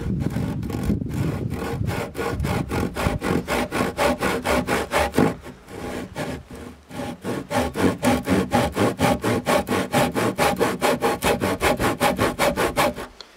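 Handsaw cutting a shallow kerf across a rough-sawn timber beam in quick, even back-and-forth strokes. The strokes soften briefly about six seconds in, then pick up again and stop just before the end.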